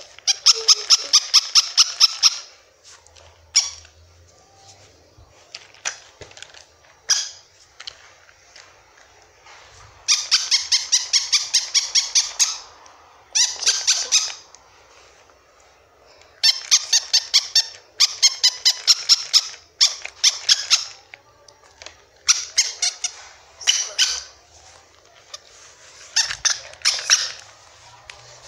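Plush toy dogs squeaking in quick runs of short, evenly spaced high squeaks, about six a second, each run lasting a second or a few, with short pauses between.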